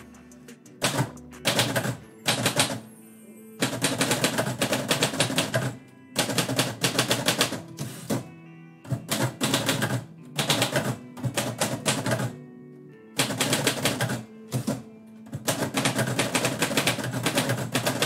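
Manual typewriter being typed on: quick runs of key strikes, each run a second or two long, broken by short pauses, as lines of a poem are typed. Background music plays steadily underneath.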